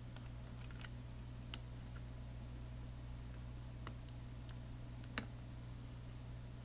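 Small plastic clicks of an SD card being pushed into the card slot of a Lowrance HDS chart plotter, several light clicks with one sharp, louder click about five seconds in, over a steady low hum.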